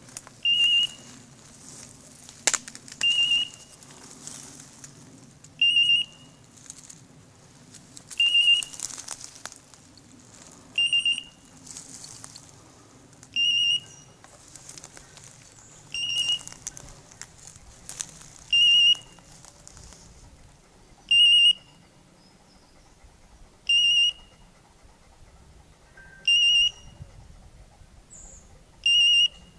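Hunting dog's beeper collar giving a short warbling electronic beep about every two and a half seconds, twelve times, signalling the English setter standing on point. Rustling footsteps through dry brush with a couple of sharp twig snaps run through the first two-thirds, then fade.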